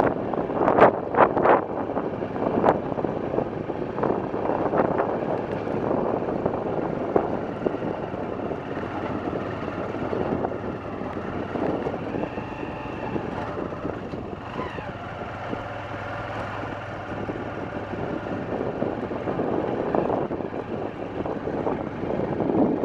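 Steady rushing roar of the Webuye Falls on the Nzoia River, with a few knocks in the first few seconds.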